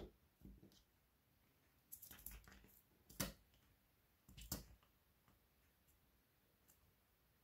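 Mostly near silence, with a few faint clicks and taps about two, three and four and a half seconds in, from a diamond-painting drill pen being handled over the canvas.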